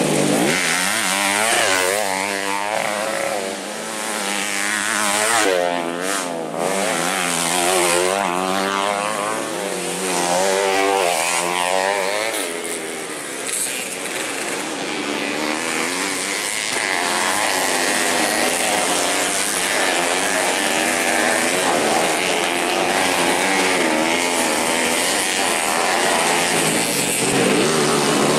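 Racing dirt bike engines revving hard, their pitch swinging up and down over and over as the riders work the throttle and gears. From about halfway it settles into a steadier, more even drone of bikes running on.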